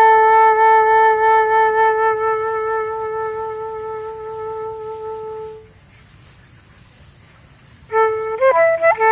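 Solo flute holding one long note that slowly fades away, then a short pause, then a new phrase of quick, shifting notes near the end.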